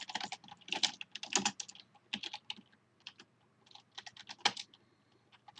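Typing on a computer keyboard: irregular runs of keystrokes with short pauses between them, and one noticeably louder key strike about four and a half seconds in.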